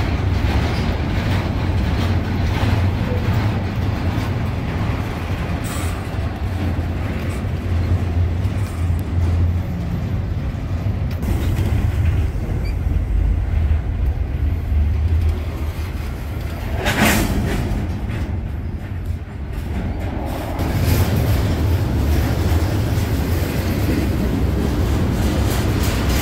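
Diesel-led track-geometry train passing, wheels clicking over the rail joints above a steady low rumble. One sharp crack sounds about seventeen seconds in.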